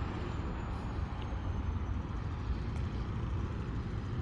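Steady outdoor rumble of road traffic, low and even, with no distinct event standing out.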